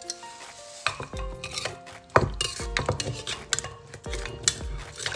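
Wooden pestle pounding in an earthenware mortar, crushing cherry tomatoes and lime, with a metal spoon knocking against the mortar. The thuds and clinks come irregularly, the loudest about two seconds in.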